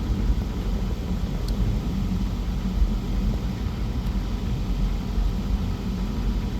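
A vehicle engine idling, heard as a steady low rumble.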